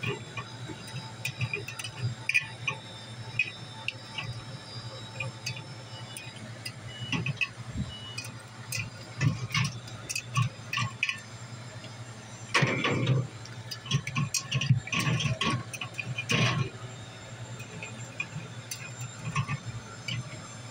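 Aluminium Mountain Dew Kickstart cans clinking and knocking against each other and the wire shelves of a refrigerated display cooler as they are moved and set in place by hand: irregular clicks and taps, busiest a little past the middle. A steady low hum runs underneath.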